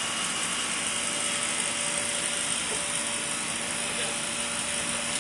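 Steady whir of an inflatable water slide's electric air blower running continuously, with a faint even hum.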